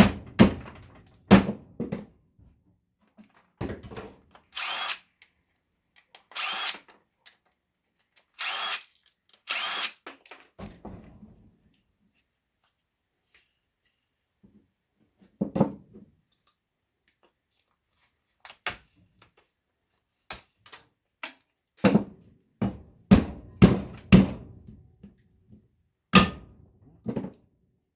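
Cordless drill-driver spinning out Phillips screws in four short runs of about half a second each, followed by a series of sharp knocks and clicks as the parts are handled and pulled apart.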